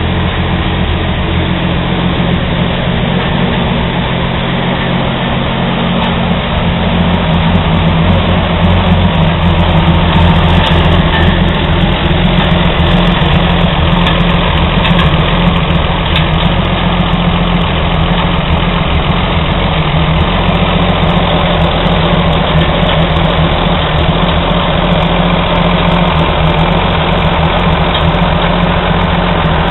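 Old Chevy truck's stovebolt six-cylinder engine running at a steady idle, a little louder for a few seconds about eight seconds in.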